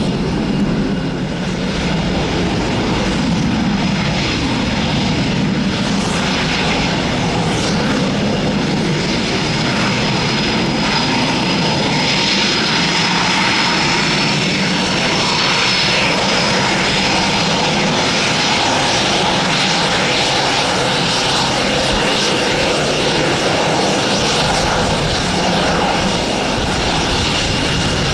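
Eurofighter Typhoon's twin EJ200 turbofan engines running at low taxi power: a loud, steady jet whine with high whistling tones over a rushing hiss.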